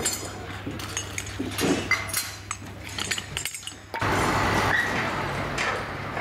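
Metal clinking and clattering from loose steel parts and tools being handled during a fairground ride teardown. About four seconds in, it cuts abruptly to a louder steady din.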